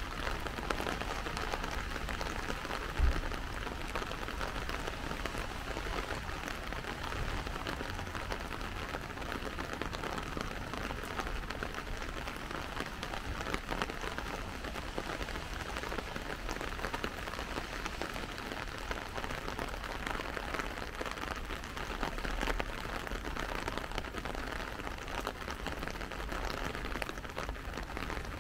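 Steady rain falling, with many fine drop ticks through it. A brief low thump about three seconds in is the loudest moment.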